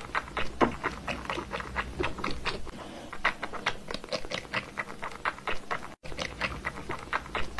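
Cat licking water from a plastic bottle's spout: a quick run of small wet clicks, about four or five a second.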